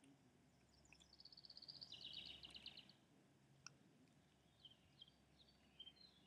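Faint songbird song: a fast trill of rapidly repeated high notes that steps down in pitch partway through, followed by a few short chirps near the end.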